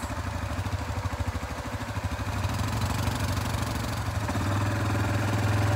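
ATV engine running with a rapid, even chug of firing pulses, getting louder about halfway through.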